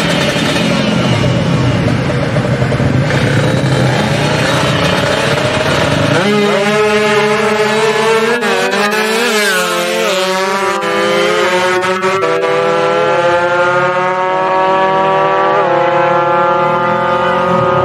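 Drag-race motorcycles revving hard at the start line, then launching about six seconds in and accelerating away, the engine note climbing and dropping back with each gear shift.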